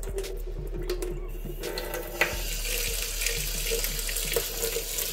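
Tap water running into a sink, coming on about one and a half seconds in, after a few light clicks and knocks, with a sharp knock soon after.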